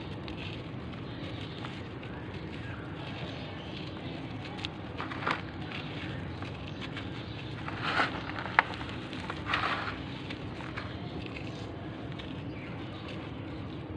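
Dry, gritty clumps being crushed and crumbled by hand, giving scattered crunching and crackling with a few louder crunches around the middle and one sharp snap. A steady low hum runs underneath.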